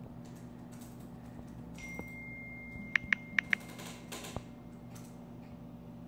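Four quick, sharp key-press clicks from an Android phone's on-screen keyboard as a four-letter word is typed, about half-way through. Underneath is a low steady hum, and a thin steady tone runs just before the clicks.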